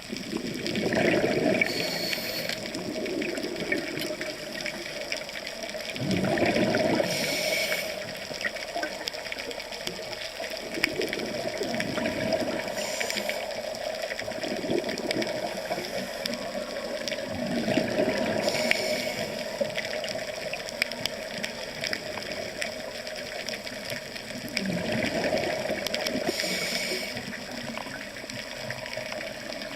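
Underwater sound of a scuba diver breathing through a regulator, with a burst of exhaled bubbles about every six seconds over a steady wash of water.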